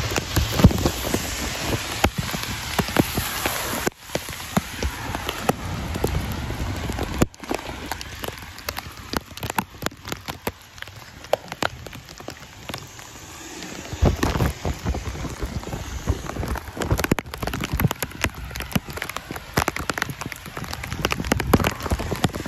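Rain falling steadily, with many sharp ticks of drops striking the plastic bag sealed over the phone's microphone. It gets abruptly quieter about four seconds in and again a few seconds later.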